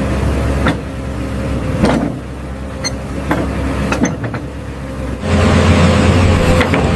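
Excavator engine running steadily with a low hum and scattered clanks, growing louder about five seconds in.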